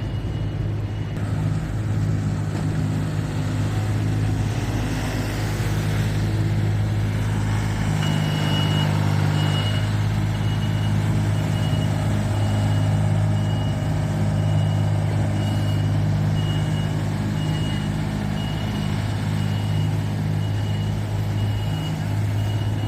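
A heavy truck's engine running steadily, with a reversing alarm beeping in a regular series: briefly at the start, then again from about a third of the way in until near the end.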